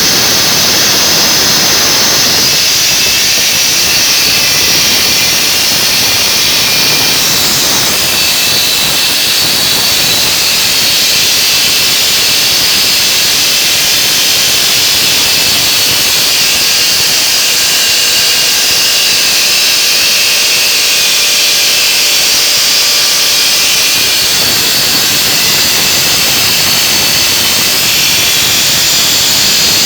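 Homemade semi-automatic stone-cutting machine with its blade cutting through stone: a loud, steady, high-pitched grinding noise that does not let up.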